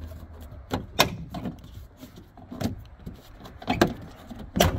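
Plastic push fasteners of a 2013 Jeep Compass liftgate side trim panel snapping loose as the panel is pulled off by hand: several sharp clicks and snaps.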